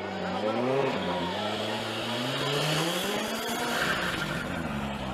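Ford Fiesta rally car's engine revving hard as the car slides wide into a snow bank. The pitch dips early on, then climbs steadily for about two seconds before breaking off.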